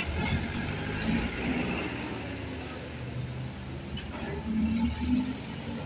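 Diesel engine of a Mitsubishi Fuso light truck running at low revs as it rolls slowly off a ferry's steel ramp, with a faint high whine that rises and falls.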